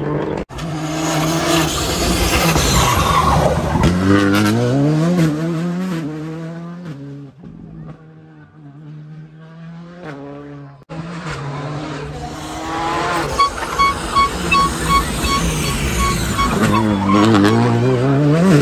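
Rally car engines at full throttle on a tarmac special stage, pitch climbing and dropping through gear changes as the cars come past. Near the end a car brakes into a hairpin, and there is a quick run of sharp pops.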